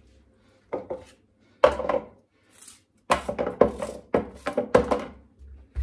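Kitchen knife cutting through a small watermelon's rind and flesh: a series of short cutting strokes, sparse at first and then coming quickly between about three and five seconds in.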